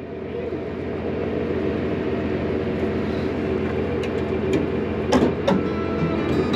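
Steady drone of a commercial fishing boat's engine running, with a few sharp knocks between four and five and a half seconds in.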